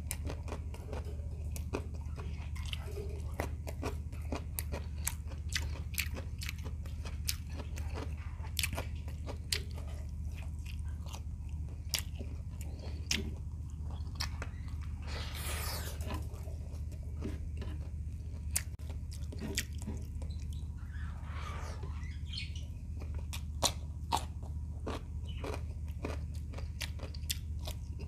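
Close-mic chewing of fried shrimp and rice, with many crisp crunches and wet mouth clicks. There are a couple of brief rushing noises partway through, over a steady low hum.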